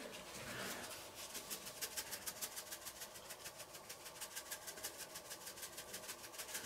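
Red-capped seasoning shaker shaken rapidly over a pot of stew, the grains rattling in a fast, even rhythm of about nine faint shakes a second, starting about a second in.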